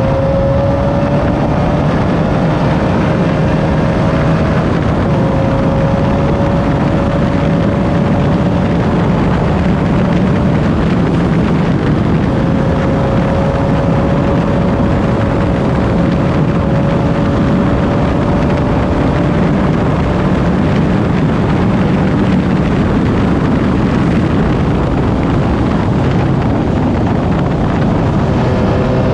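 Class 9 off-road race car's engine running hard at a nearly constant speed, its pitch drifting up slightly a few times, over a steady loud rushing noise.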